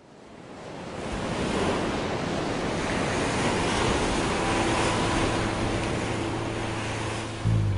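Ocean surf washing, fading in from silence over the first second or so. A held low musical note comes in about halfway through, and guitar music starts right at the end.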